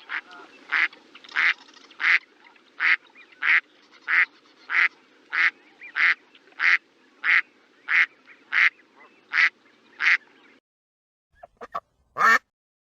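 Duck quacking over and over, one short quack about every two-thirds of a second, about sixteen in a row, then cutting off suddenly. A few short, different sounds follow near the end.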